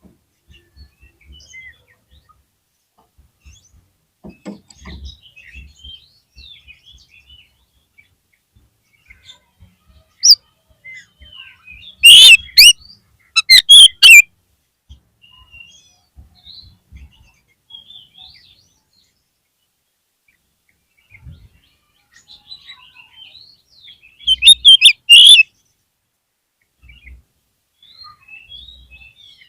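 Oriental magpie-robin (kacer) calling: scattered short chirps and whistles, broken twice by loud clusters of rapid, sharp notes, once about twelve seconds in and again near twenty-four seconds.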